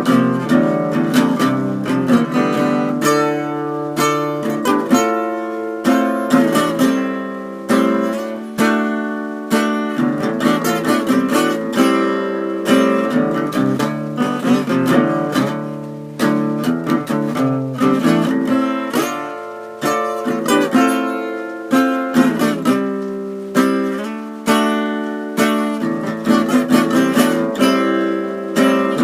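Acoustic guitar playing an instrumental passage of a song: rhythmic strummed chords and plucked notes, each ringing and fading before the next.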